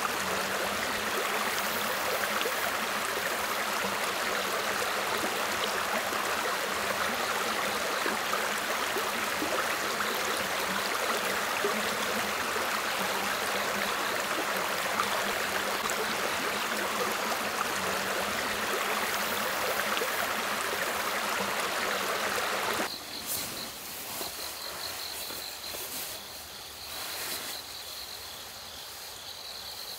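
Steady rushing of a stream over stones. About three-quarters of the way through it cuts off abruptly, leaving quieter night insects with a steady high trill.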